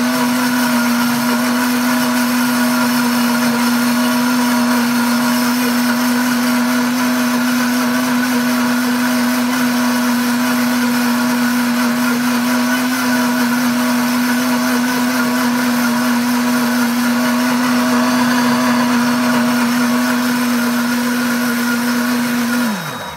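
Pampered Chef Deluxe blender motor running steadily on its grind program, grinding roasted hazelnuts into a thick, creamy nut paste. It winds down in pitch and stops near the end as the countdown timer runs out.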